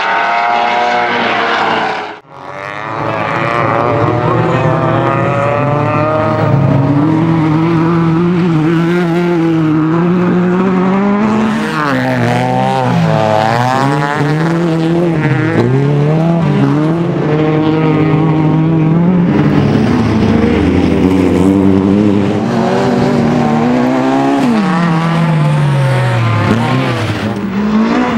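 A short logo sound, then Honda Civic rallycross cars' engines running hard on a dirt track. The pitch holds steady at high revs for long stretches, dips and climbs again several times in the middle, and falls away near the end as a car lifts off.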